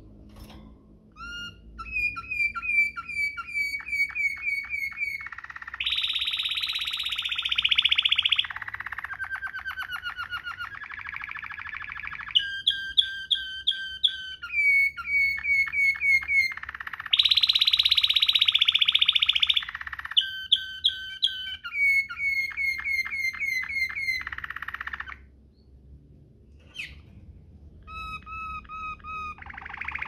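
Domestic canary singing a rolling song in the Waterslager style: runs of quick repeated notes that change every second or two, with two louder, very fast rolls. A short pause comes about 25 seconds in before the song resumes.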